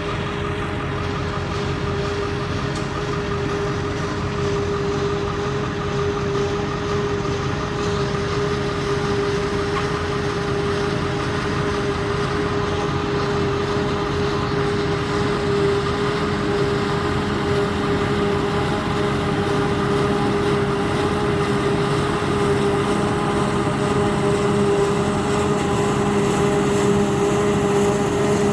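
Diesel engine of corn silage harvesting machinery running steadily with a constant hum, growing slightly louder toward the end.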